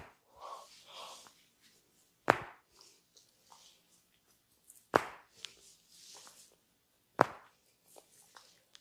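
Hands striking bare skin during an oil massage: three sharp slaps about two and a half seconds apart, with soft rubbing of hands on skin between them.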